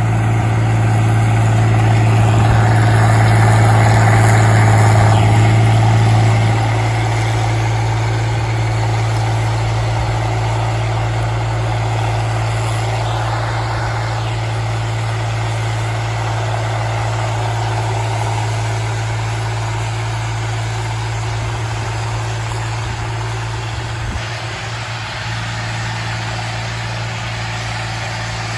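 Fiat tractor's diesel engine running steadily under load while driving a rotary power harrow through the soil. The hum drops a step about six seconds in and eases off slightly as the tractor moves away.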